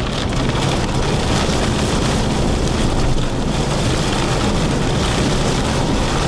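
Steady rain and wind on a moving car, heard from inside the cabin, with a low engine and road drone underneath.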